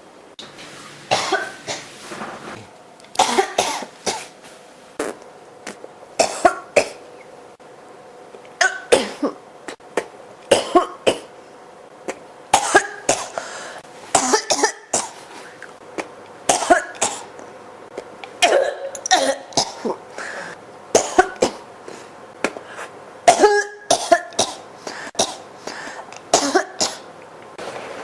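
A person coughing over and over in fits that won't stop: short, sharp coughs in clusters of two to four, coming back every second or two.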